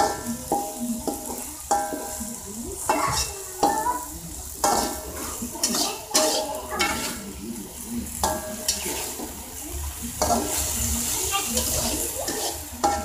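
Metal ladle scraping and knocking against a wok while stir-frying green beans and fish cake, each knock ringing briefly, at an uneven pace. A steady sizzle of the frying food runs underneath.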